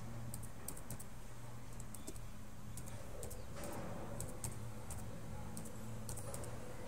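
Typing on a computer keyboard: keystrokes clicking in short irregular runs, over a steady low hum.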